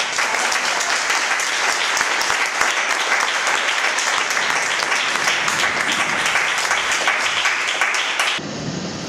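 Audience applauding: a dense spell of many hands clapping that breaks off about eight seconds in.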